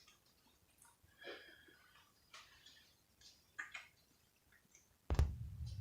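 Faint, brief rustles of hair and a hot roller being handled as the roller is unwound from a curl, followed by a sharp click about five seconds in, after which a low hum sets in.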